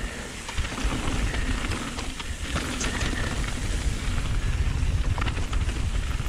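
Mountain bike rolling fast down a gravel downhill trail: steady tyre and wind rumble on the microphone, with a few sharp clicks and rattles from the bike over stones.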